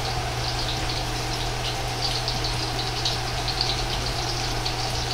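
Gyoza deep-frying in oil in a wok on low heat: a steady bubbling sizzle with many small crackles, over a steady low hum.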